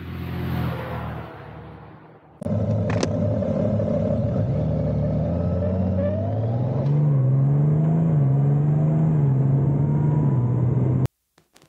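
Honda Gold Wing motorcycle engine heard on board, pulling away and accelerating with a rising pitch, then running steadily at speed before cutting off abruptly near the end. Before it there is a short swell that fades within the first two seconds.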